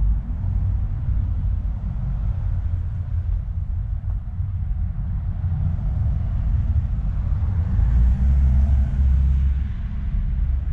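Low, steady rumble of road traffic, with a vehicle's tyre noise swelling louder about eight seconds in as it passes.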